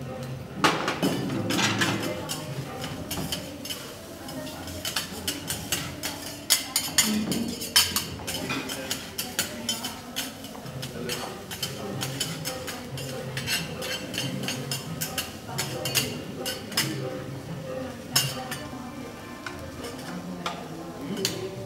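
Metal spatulas clinking and scraping on a steel flat-top griddle as noodles and vegetables are stir-fried, in many quick, irregular clinks.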